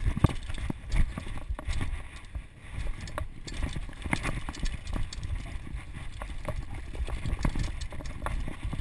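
Ellsworth Evolve mountain bike clattering over rocks and roots on a descent: many irregular sharp knocks and rattles from the bike over a low rumble.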